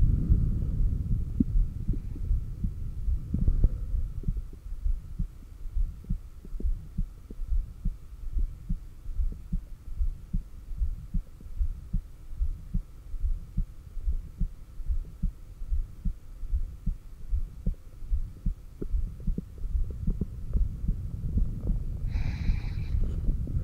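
Heartbeat picked up by a stethoscope on the chest at the heart's apex: a steady, regular run of low thumps. A brief high-pitched squeak sounds near the end.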